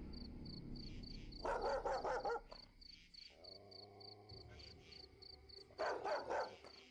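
A dog barks in two short bouts about four seconds apart, a few quick barks each time, over a steady chirping of crickets.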